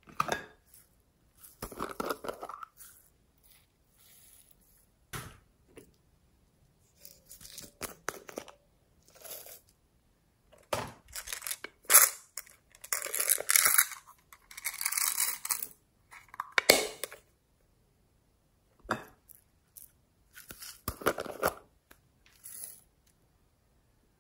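Hands handling small plastic slime containers and tipping confetti sprinkles onto slime in a glass bowl: scattered clicks, scrapes and crackly rustling bursts with silent gaps between them. The busiest, loudest stretch comes about halfway through, with a sharp click at its start.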